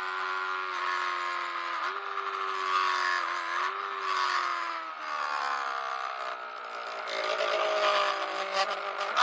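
Yamaha R3's 321 cc parallel-twin engine with an aftermarket exhaust running at high revs on track, with wind rushing over the microphone. The engine note holds steady at first, falls slowly through the middle, and climbs sharply again right at the end.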